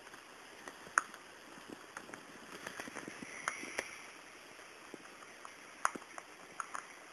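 Rabbit nibbling food out of a plastic bag: irregular small crunches and crinkles of the bag, with a busier stretch of crinkling in the middle.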